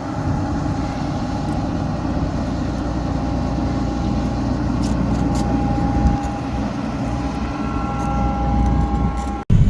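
Farm machine's engine running steadily while driving on the road, heard from inside the cab: a low rumble with a steady whine over it, breaking off abruptly near the end.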